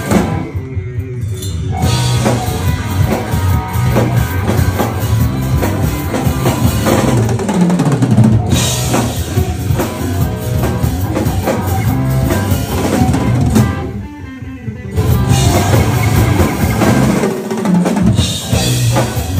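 Heavy rock band playing: a drum kit with bass drum and snare drives electric guitar and bass guitar. Twice the cymbals and guitars drop out briefly while the low notes ring on, about a second in and again about two-thirds of the way through.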